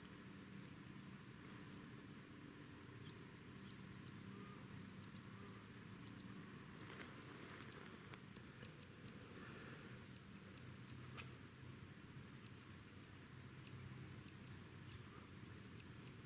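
Near-silent winter woods with faint, high-pitched small-bird chips and short ticks scattered throughout.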